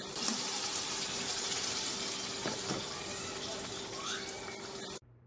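Tomato juice and paste simmering in a pan while a spoon stirs it, a steady liquid hiss that cuts off suddenly about five seconds in.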